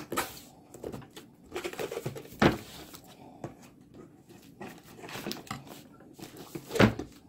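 Bubble wrap and cardboard packing rustling and crinkling as a framed mirror is unwrapped by hand, with scattered handling clicks and two sharper knocks, one about two and a half seconds in and one near the end.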